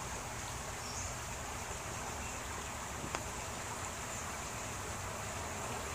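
Shallow creek water running steadily with an even hiss, and a single small click about three seconds in.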